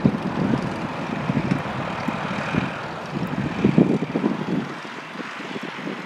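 Nuffield tractor's engine running steadily under load as it pulls a plough through the ground, with a quick, uneven low pulsing from its exhaust.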